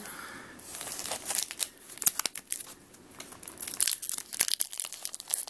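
Foil booster-pack wrappers crinkling as they are handled, an irregular run of crackles with a sharper snap about two seconds in.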